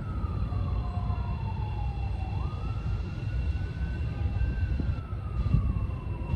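A slow wailing siren, its pitch falling, rising sharply about two and a half seconds in, then falling again, over the low rumble of a CTA Pink Line train approaching a grade crossing.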